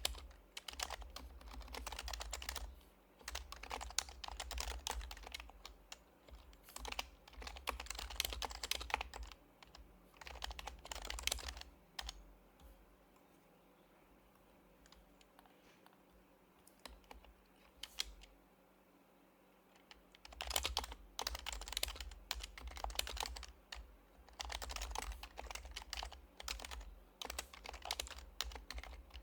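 Typing on an HHKB Professional HYBRID Type-S keyboard, with its quietened Topre key switches, in bursts of quick keystrokes. Near the middle there is a pause of several seconds with only a couple of single key presses before steady typing resumes.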